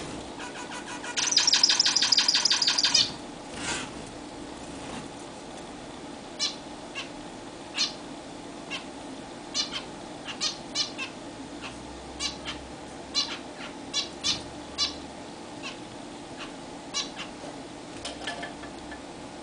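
Zebra finches calling: a loud buzzy, rapidly pulsed call lasting nearly two seconds about a second in, then a string of short nasal honking calls scattered through the rest.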